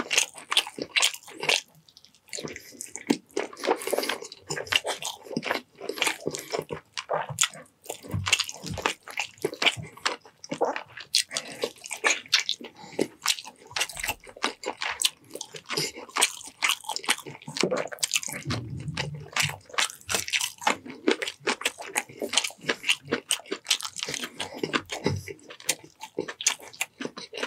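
Close-miked wet eating sounds of a person eating chicken adobo in coconut-milk sauce with rice: chewing, lip-smacking and sucking, a fast, irregular run of moist clicks and smacks.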